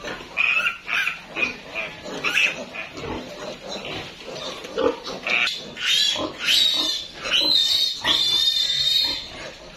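Piglet squealing in distress while it is held by its hind legs and castrated: a run of short squeals, then longer, higher shrieks in the second half.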